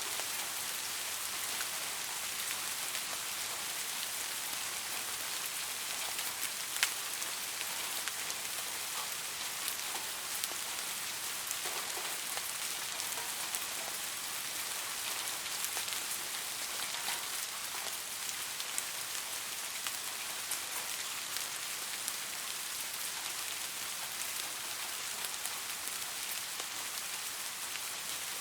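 Soft rain falling steadily on a surface: an even hiss with scattered individual drops ticking through it, one sharper drip about seven seconds in.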